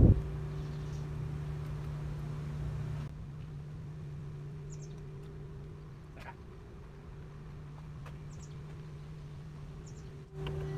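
Quiet outdoor ambience with a few short, high bird chirps here and there. A steady low hum runs under it for about the first three seconds, then stops at a cut.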